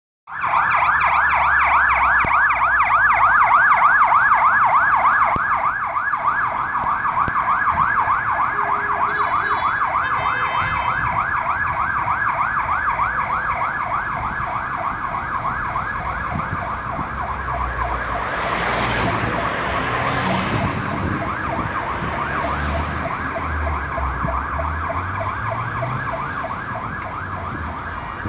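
Ambulance electronic siren sounding a fast, repeating rise-and-fall wail. It is loudest in the first few seconds and slightly fainter after that. About two-thirds of the way through, a brief rush of noise passes over low traffic rumble.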